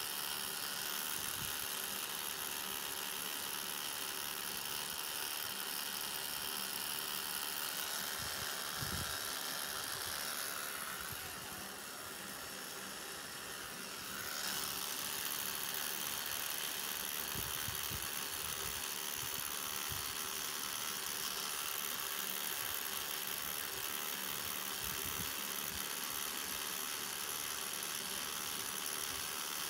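Cartridge rotary tattoo machine running with a steady whir as its needle lines the skin. The sound drops in level for a few seconds near the middle.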